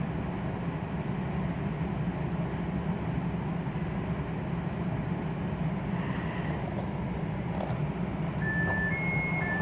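Cabin of a Taiwan Railways EMU900 electric multiple unit running with a steady low rumble as it comes into a station. Near the end the door chime starts: alternating low and high beeps, each about half a second, warning that the doors are about to open.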